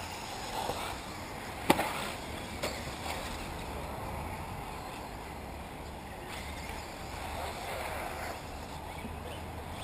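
Electric 1/8-scale off-road RC buggies running on a dirt track, heard as a steady mix of motor and tyre noise, with a sharp knock about two seconds in and a fainter one a second later.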